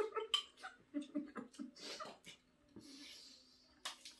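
Quiet murmured voice sounds during eating, then a soft breath and a few light clicks near the end.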